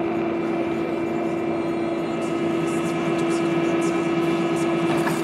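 Moving haul rope of a 1974 GMD Müller T-bar ski lift humming steadily as it runs over the tower sheave trains, with light ticks joining from about two seconds in as the tower comes close.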